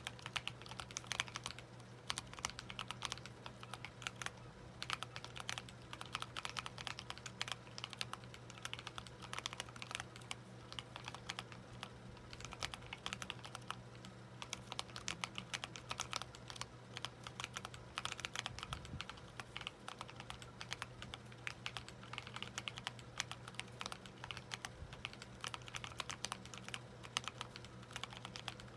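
Continuous typing on a Helix split keyboard with lubed Halo True tactile switches and SA-profile keycaps: a steady stream of irregular key clicks and thocks. A faint steady low hum sits underneath.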